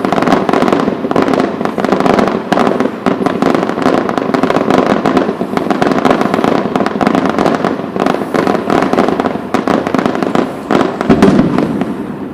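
Fireworks display going off, a dense, unbroken run of bangs and crackling pops that eases slightly near the end.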